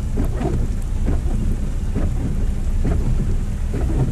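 A car driving through a shallow flooded creek crossing, heard from inside the cabin: a steady low rumble from the tyres and water, broken by irregular splashes and knocks against the underside.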